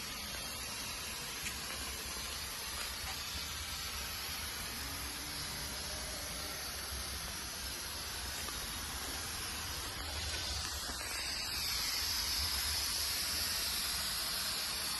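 CompTech rotary screw air compressor running with a steady hiss of compressed air over a low hum. The hiss gets a little louder and higher about eleven seconds in.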